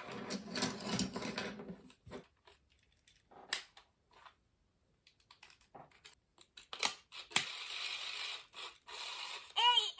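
Small mechanical clicks and rattles from a Furby Baby toy being handled, with a brief high, bending electronic voice starting just before the end.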